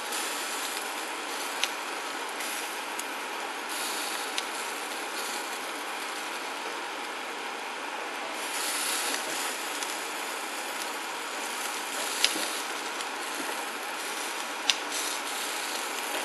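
Beef tripe (mino) and other offal sizzling steadily on a wire mesh over a tabletop grill, with a few sharp clicks of metal tongs against the mesh.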